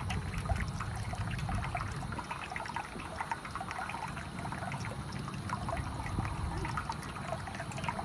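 Water trickling from a drinking fountain's pet spout into its bowl while the button is held, with a small dog lapping at the water.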